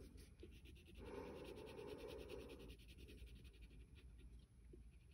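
Faint scratching of a wax crayon coloring in on paper, lasting a couple of seconds from about a second in.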